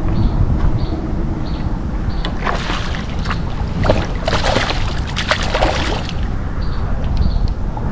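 Water splashing and sloshing around a kayak, heaviest in the middle, over a steady low rumble. Faint short high chirps repeat about every half second or so.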